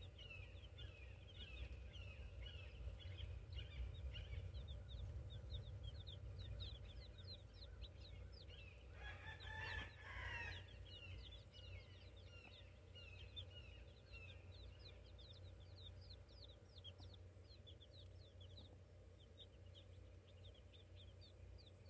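A brood of young chicks peeping constantly in short, high, falling cheeps. About nine seconds in, a louder chicken call lasting about a second and a half rises over them.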